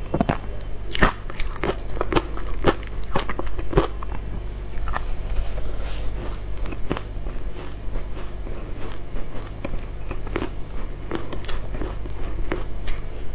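Close-up crunching and chewing of matcha-powdered ice: crisp bites, frequent over the first four seconds, then fewer and more spread out.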